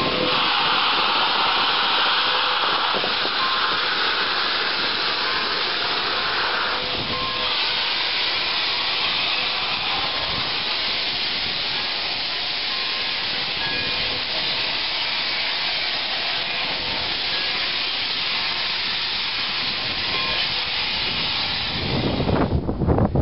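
Pere Marquette 1225, a 2-8-4 Berkshire steam locomotive, venting steam low around its cylinders and running gear in a loud, steady hiss. Just after 22 seconds the hiss cuts off and a deeper train rumble takes over.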